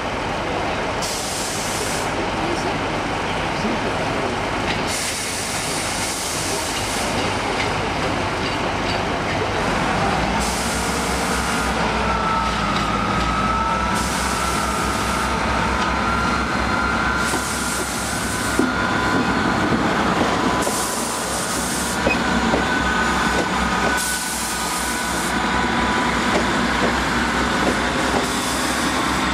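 InterCity 125 High Speed Train arriving at a platform. Its Class 43 power car's diesel engine rumbles as it draws in past. Its coaches then roll by while it slows, with a high brake squeal from about ten seconds in.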